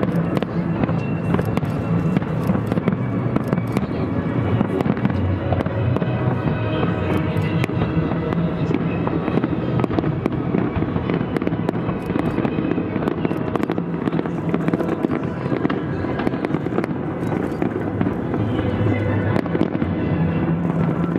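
Fireworks shells bursting and crackling in a steady stream of sharp bangs, over continuous background music.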